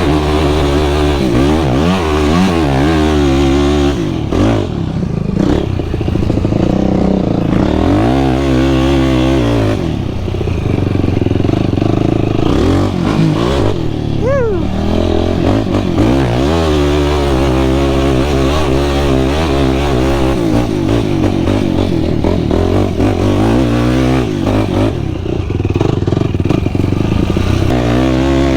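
Sport quad's engine under riding load, its pitch rising and falling over and over as the throttle is worked, with brief lets-off a few times.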